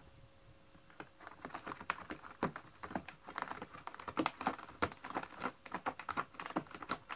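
A cat scratching and pawing with its claws: a rapid, irregular run of small clicks and scrapes that starts about a second in.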